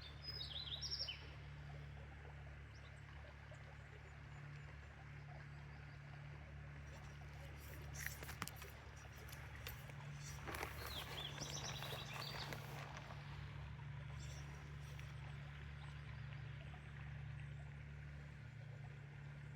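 A bird chirping in two short bouts, one near the start and a longer one about halfway through, over a steady low hum and outdoor background noise, with a couple of sharp clicks in between.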